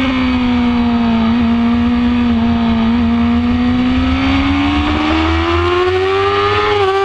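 2006 Yamaha R6's inline-four engine running hard at high revs on track. The note sags a little at first, holds steady through the bend, then climbs steadily over the last few seconds as the bike accelerates. A low wind rumble on the microphone runs underneath.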